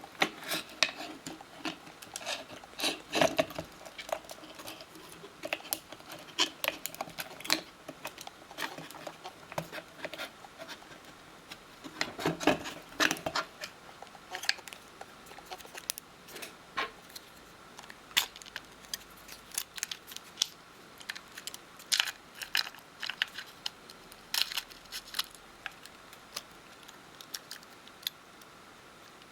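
Irregular small clicks, taps and light scrapes of hands and small tools working on the inside of an opened iPhone 5 as a replacement headphone jack part is pressed into place. The clicks come in louder clusters about 3 seconds in and again about 12 seconds in.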